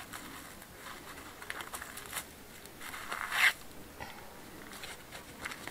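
Dry, spiky weeds being pulled from hard, dry ground by a gloved hand: a crackling rustle of small clicks and snaps, with one louder rip about three and a half seconds in.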